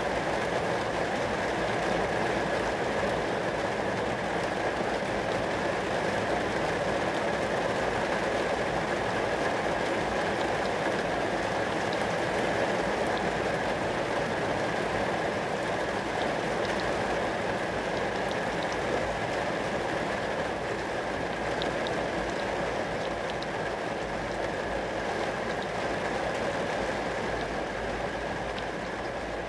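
Rain falling onto glass: a steady, even rush with occasional faint ticks of single drops.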